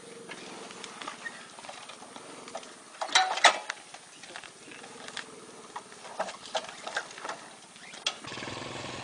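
Small motorcycle engines running at idle, with a couple of short loud sharp sounds about three seconds in. Near the end a louder, steadier engine sound sets in as a bike starts pulling away.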